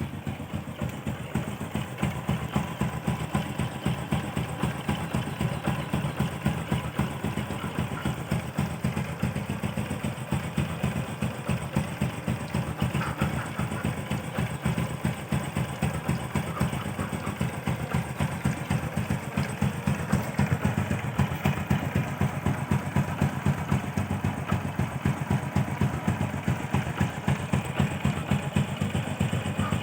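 Honda Supra X 125's single-cylinder four-stroke engine idling steadily through its stock exhaust, an even, rapid pulse.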